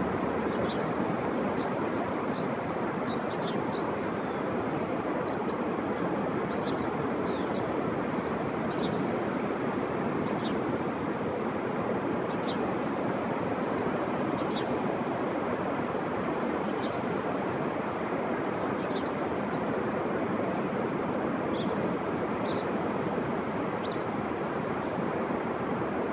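Steady, unbroken rushing of Pacific Ocean surf, with many short, high bird chirps scattered throughout.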